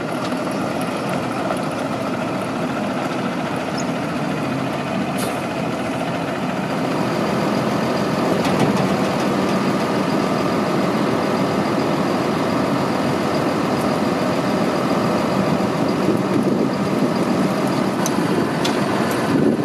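Ford F650 Super Duty dump truck's diesel engine running steadily, a little louder from about seven seconds in, while the hydraulic dump body is hoisted.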